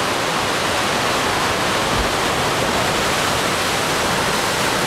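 Ocean surf breaking on rocks: a steady, unbroken rushing noise.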